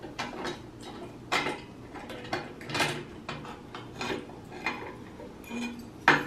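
Thin steel plate clinking and scraping against the drill press's metal table as it is shifted and lifted off, a string of irregular metallic clatters with a louder knock near the end.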